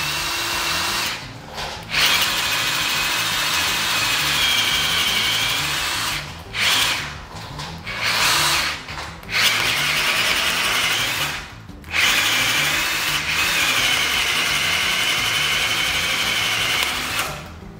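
Einhell TE-CD 18/50 brushless cordless drill in low gear (speed 1) boring a 32 mm self-cut spade bit into very hard wood: the motor whines steadily under heavy load as the bit chews through. It stops briefly several times and starts again.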